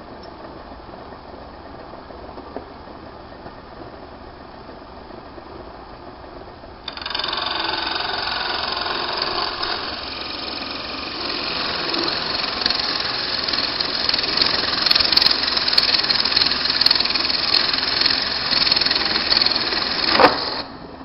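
Small lathe running with a low hum; about a third of the way in a hand tool is set against the spinning bone blank and a loud, steady scraping hiss of the cut starts, lasting until a sharp click just before it stops near the end.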